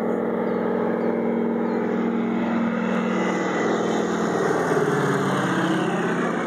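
Low-flying crop-duster airplane passing overhead: a steady engine-and-propeller drone whose pitch drops from about halfway through as it goes by and away.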